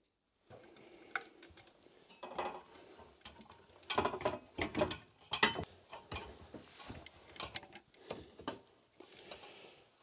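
Irregular clanks, clicks and knocks of someone climbing an aluminium ladder up through a loft hatch and handling gear at the top, with a short rustle near the end.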